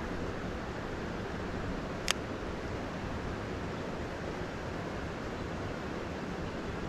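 Steady, even rushing hiss of outdoor background noise, with one sharp click about two seconds in.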